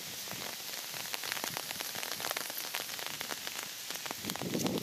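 Steady rain falling, a dense patter of many small drop ticks.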